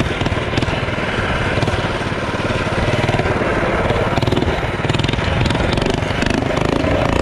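Performance mini bike's small engine running steadily as the bike rides along.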